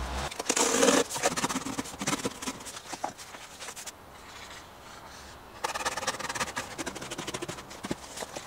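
A large sheet of corrugated cardboard being handled: rustling, scraping and flexing as it is laid down on the floor and lifted again, loudest about half a second in, with a second stretch of rustling from just past the middle.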